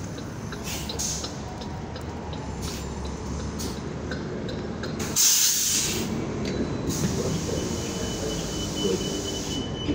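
A New Flyer XN40 city bus running at the stop, with a loud burst of compressed-air hiss from its pneumatics about five seconds in. From about seven seconds a thin, steady high squeal runs on.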